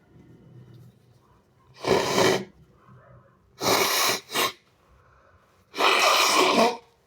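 A person sneezing three times in a row, wet and snotty sneezes, each about half a second or more long. The second one is followed at once by a short extra burst.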